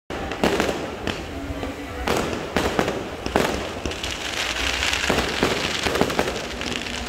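Fireworks going off: a string of sharp bangs at uneven intervals, a few in quick succession, with a hissing, crackling stretch about halfway through.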